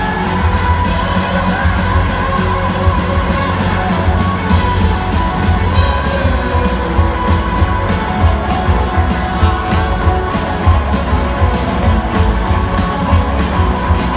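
Rock band playing live: electric guitars and drums at full volume with a steady driving beat, heard from the audience in a large hall.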